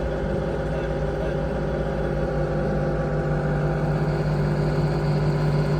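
An engine running steadily at constant speed, a low even hum with no revving.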